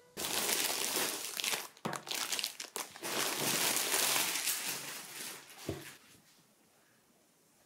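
Packaging crinkling and rustling in uneven bursts as a new blanket is unpacked and handled, stopping about six seconds in, with a light knock just before it ends.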